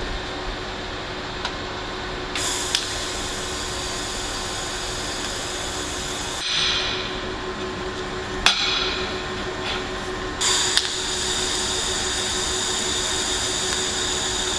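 TIG welding arc on thin-wall stainless steel pipe, a steady hiss. It starts with a sharp click a couple of seconds in, stops about four seconds later, and is struck again with a click near the end. A steady low hum runs beneath it.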